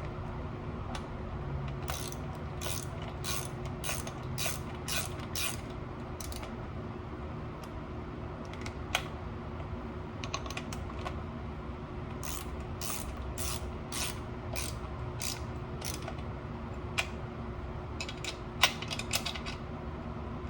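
Ratchet wrench clicking in runs of strokes, about two clicks a second, with pauses between the runs and a few single clicks.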